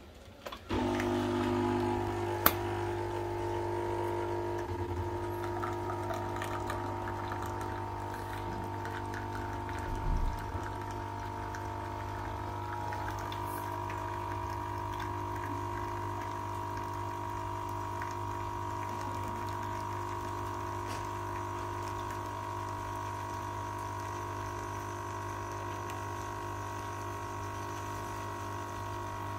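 Dolce Gusto Mini Me capsule coffee machine's pump starting about a second in, then running with a steady hum as it pushes hot water through a Nespresso capsule in an adapter, with coffee pouring into a glass mug. A single sharp click comes a couple of seconds in, and a brief thump near the middle.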